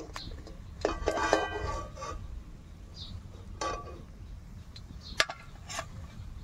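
Metal clinks and knocks on a stainless steel plate as fried fritters are laid on it: a cluster of ringing clinks about a second in, then a few single clinks spaced out.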